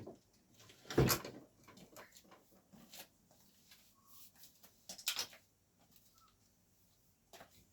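A few scattered knocks and clicks, the loudest about a second in, with others at about three, five and seven seconds.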